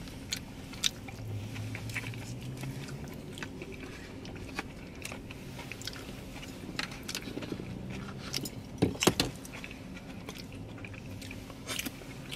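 Eating sounds: chewing, with scattered small clicks and taps of plastic forks against foam takeout containers, and two louder knocks about nine seconds in.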